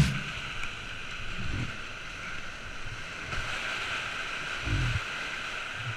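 Whitewater rushing steadily around a kayak running a steep rapid, with two dull low thumps, one about a second and a half in and one near five seconds.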